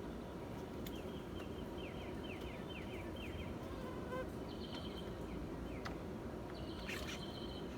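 Small birds chirping in short, rapid trilled phrases over a steady low outdoor rumble, with a few sharp clicks.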